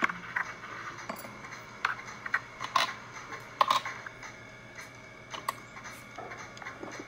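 Seasoning being added to a glass mixing bowl: irregular sharp clicks and taps of a spice container and spoon, the loudest few around three to four seconds in, over a faint steady hum.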